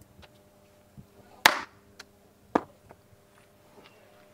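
Several sharp smacks or knocks, the loudest about a second and a half in and another about a second later, with a few fainter clicks between, over a steady low hum.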